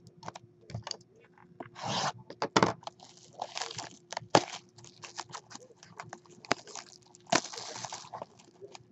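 Trading card box being opened and its wrapping handled: crinkling and tearing of the packaging, with many short clicks and scrapes and a few longer rustles.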